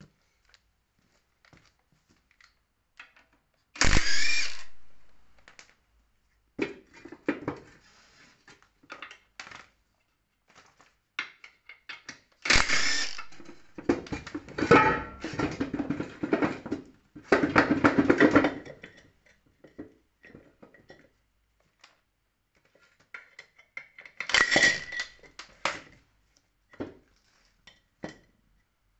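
Intermittent metal clanks, knocks and scraping as a transaxle bellhousing and a bare engine block are handled and fitted together. There is one sharp clank about four seconds in that rings away, a long run of clattering from about twelve to nineteen seconds, and another burst near the end.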